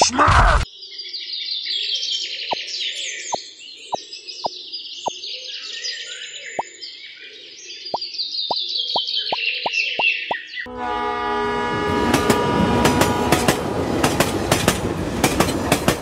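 Birds chirping over a low hum, with a dozen light clicks as fruit is set down in a small wooden trolley. About eleven seconds in, a loud engine sound starts up and keeps running with a rapid clattering knock.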